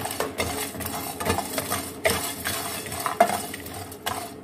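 A wooden spatula stirring and scraping whole dry spices (star anise, a cinnamon stick, coriander seeds, cardamom pods) around a dry metal frying pan, the seeds and pods rattling and scraping across the pan in an irregular run of clicks and scrapes. The spices are being dry-roasted over low heat.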